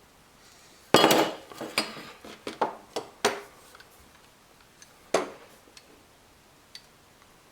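Metal tools and faucet parts being handled and set down on a hard surface: a loud clank about a second in, a quick run of clinks and knocks, then one more clank after about five seconds.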